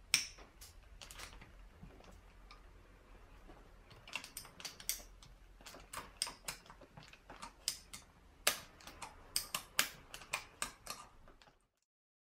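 Small ratcheting driver clicking in quick irregular runs as the screws holding the throttle position sensor are loosened on a Toyota 4A-GE throttle body; the sound cuts off abruptly shortly before the end.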